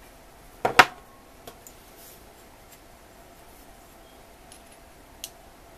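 Small steel engineer's squares and a digital caliper being handled: a sharp double clack of metal under a second in, then a few light ticks.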